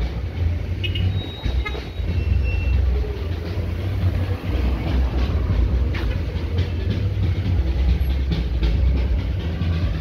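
Outdoor street noise at night: a steady deep rumble, with a few brief faint high chirps in the first few seconds.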